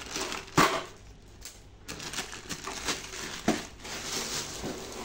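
Handling noise as a cardboard box and plastic wrap are moved about on a metal amplifier case: rustling and crinkling, with a sharp knock about half a second in and a smaller one later.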